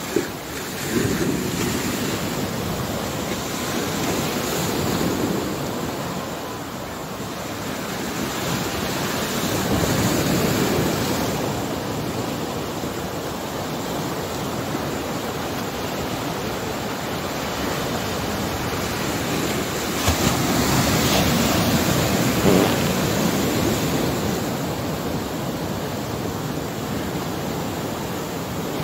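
Sea surf breaking and washing around rocks at the shoreline, a steady rush of water that swells louder and eases every several seconds as waves come in.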